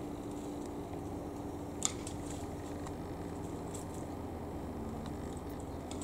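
Steady low background rumble with a faint hum and a single sharp click about two seconds in; no bird calls.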